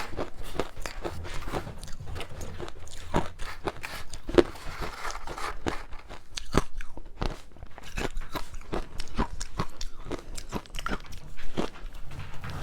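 Close-miked biting and chewing of ice dusted with matcha powder: an irregular run of sharp crunches and crackles, several a second.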